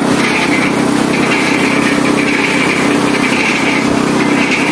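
Mini concrete mixer's small petrol engine running steadily, turning the empty drum.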